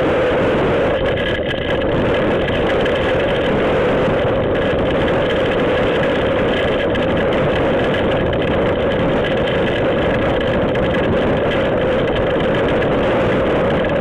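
Storm wind and rain making a loud, steady rushing noise.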